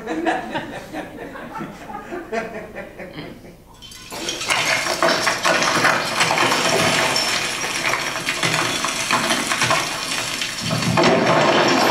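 Stones clinking and clattering against one another, then from about four seconds in a continuous loud rush of rubble tumbling and pouring, which grows louder near the end.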